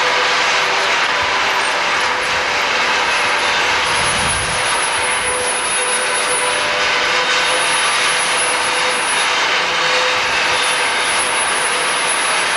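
Sawmill machinery running, a loud, steady mechanical noise with a faint high whine that comes and goes.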